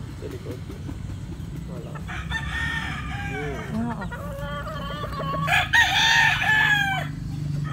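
Roosters crowing: a crow about two seconds in and a louder one from about five and a half seconds, over a steady low hum.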